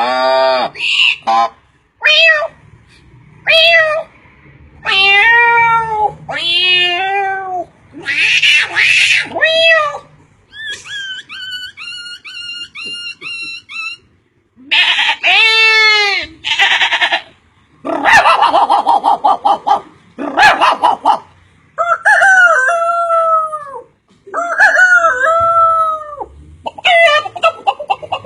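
A man imitating a series of different animal calls with his voice: one call after another, each a second or two long with short gaps, some rising and falling in pitch, some harsh and raspy, and a run of quick repeated chirps in the middle.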